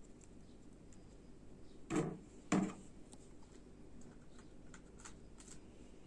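Faint rustling and small clicks of hands tying cord onto a homemade slingshot, with two short, louder sounds about two seconds in, half a second apart.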